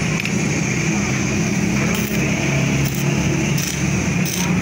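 A steady low hum throughout. Near the end come short, sudden crackles from arc welding on a motorcycle's steel kick-start lever.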